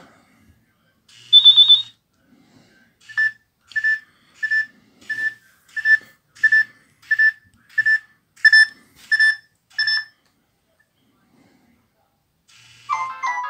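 Nokia 3650's loudspeaker playing ringtone previews at the loudest (Outdoor) profile volume. A short high tone comes about a second in, then a run of eleven evenly spaced beeps, about one and a half a second, and near the end a polyphonic MIDI melody starts.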